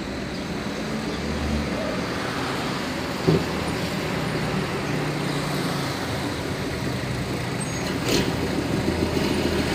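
Street traffic: vehicle engines and tyres running steadily, with one short knock about three seconds in; a heavy truck's engine grows louder near the end.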